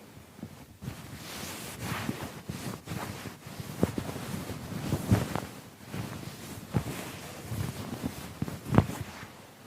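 Keyboard being scrubbed and handled during cleaning: irregular rubbing and swishing with several sharp knocks, the loudest near the end.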